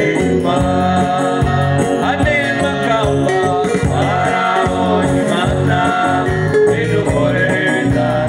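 Gospel praise music: singing over instruments with a steady drum beat.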